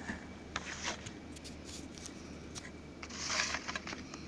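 Plastic CD jewel case and its paper booklet being handled: scattered light clicks and taps, and a brief papery rustle about three seconds in.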